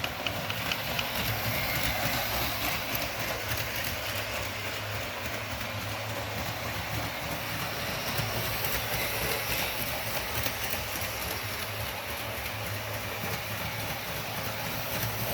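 Holiday Express electric toy train running around its track: a steady motor whir with rapid, continuous clicking of the wheels over the track.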